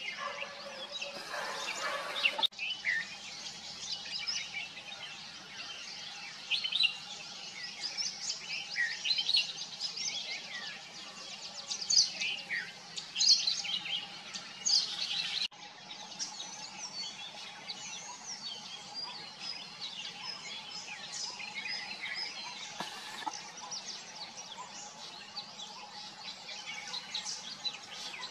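Several small birds chirping and calling, with many short high notes and trills overlapping, over a faint steady hum. The background changes abruptly twice where the recording is cut.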